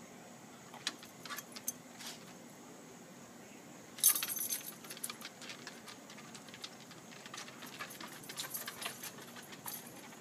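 Dog collar tags jingling and claws clicking on wooden deck boards as two beagles scuffle in play: scattered light clicks and jingles, with a louder burst of rattling about four seconds in.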